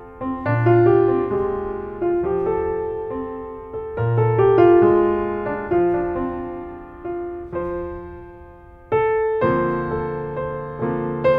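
Background piano music: chords struck one after another, each left to ring and fade before the next.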